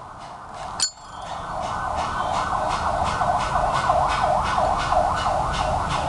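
A single sharp metal click about a second in, as the Zippo lighter's lid flips open. After it comes a louder wailing tone that rises and falls about three times a second, like an emergency vehicle's siren yelp.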